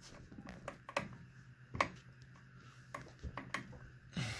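Scattered light clicks and taps, with one louder knock a little under two seconds in, from a screwdriver turning screws into a ceiling fan's metal light-kit housing while its parts are handled.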